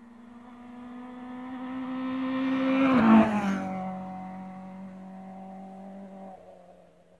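Rally car passing at speed: its engine's steady note grows louder as it approaches, drops in pitch as it goes by about three seconds in, then fades as it drives away.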